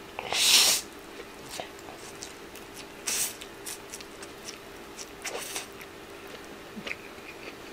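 A man slurping spaghetti noodles off a fork: three loud slurps, about half a second in, just after three seconds and at about five and a half seconds, with small smacking clicks of chewing between them.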